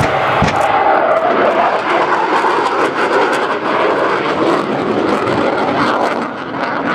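Loud, steady jet engine noise from an RAF Tornado GR4's twin RB199 turbofans, easing slightly near the end.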